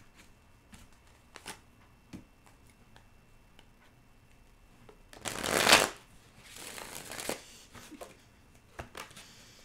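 A deck of tarot cards being shuffled by hand: a few light taps and clicks, then a loud rush of cards about five seconds in, and a softer one just after.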